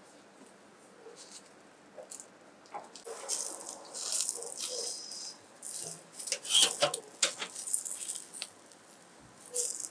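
Vegetable skewers of tomatoes, eggplants and peppers on a charcoal grill: juices hissing and crackling on the hot coals, with sharp clinks and rattles of the metal skewers as they are turned. The hissing starts about three seconds in, and the clinks are loudest a little past the middle.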